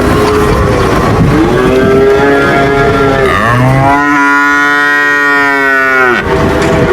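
Cattle mooing: a few drawn-out moos, with one long, loud moo beginning about halfway through and lasting around three seconds, over constant background noise.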